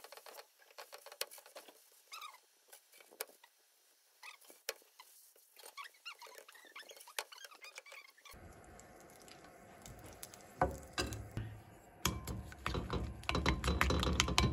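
Faint clicks and short squeaks of a plastic spatula working a paratha on a nonstick tawa. From about eight seconds in, a fork beats eggs in a ceramic bowl, its quick clinks growing louder toward the end.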